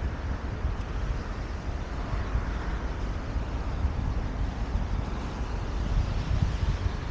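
Wind buffeting the microphone outdoors, an uneven low rumble over a steady rushing noise.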